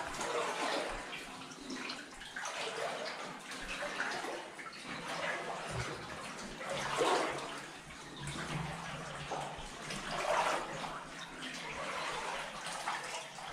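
Water sloshing and splashing in irregular surges every second or so, from feet wading through water along a flooded mine adit.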